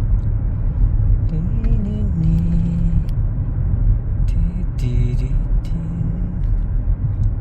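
Road noise inside a moving car's cabin: a steady low rumble, with faint voice-like sounds twice.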